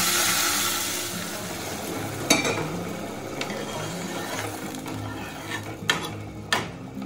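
Hot water poured into a pot of rice and peas frying in oil, hissing and sizzling as it hits the hot pan, the hiss slowly dying down. A spatula then stirs the pot, with a sharp clink about two seconds in and a couple of knocks against the pot near the end.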